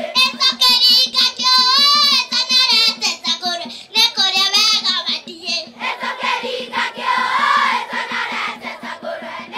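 A girl singing a song solo into a microphone over a sound system, her voice wavering strongly on held notes in phrases of two to three seconds, with a children's choir behind her. A steady low hum runs underneath.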